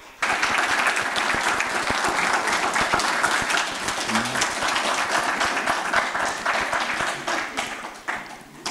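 Audience applauding: clapping breaks out suddenly, keeps up steadily, and dies away near the end.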